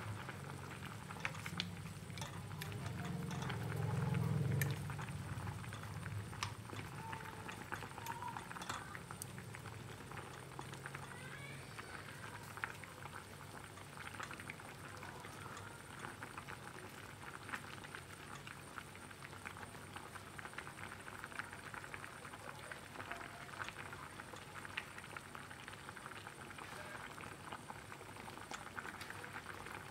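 A pot of pumpkin chunks at a rolling boil in water, bubbling and popping with a steady fizzy crackle. A low hum runs under it for the first dozen seconds, loudest about four seconds in, then fades away.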